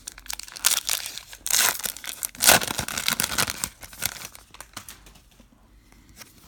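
Crinkly trading-card pack wrapper being torn open and crumpled, with a sharp rip about two and a half seconds in; the crinkling dies down after about four seconds.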